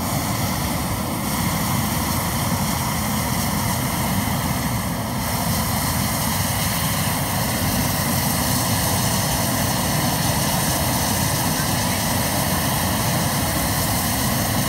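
Hot air balloon's propane burner firing in one long, steady burn, heating the envelope of the upright balloon before lift-off.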